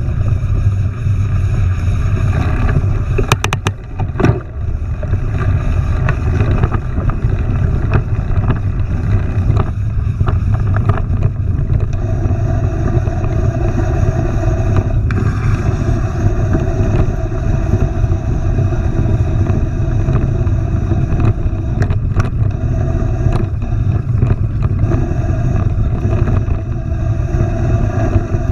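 Mountain bike riding over a trail: a steady low rumble of tyres and wind on the camera microphone, broken by scattered clicks and rattles, with a brief cluster of knocks about three seconds in.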